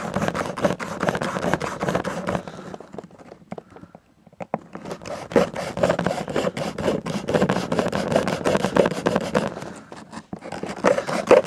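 Knife blade sawing and scraping at a hard plastic mechanical-pencil barrel in fast rasping strokes, with two short pauses, one about two and a half seconds in and one near the end. Slow going, which the cutter puts down to either a dull knife or very hard plastic.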